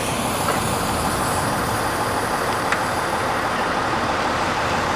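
Fire engine running steadily close by, a constant engine noise, with one short click about two and a half seconds in.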